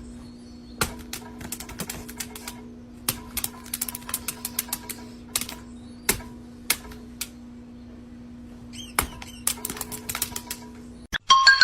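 Irregular sharp clicks and taps, some in quick runs, over a steady low hum. Near the end it cuts to a short musical sound effect.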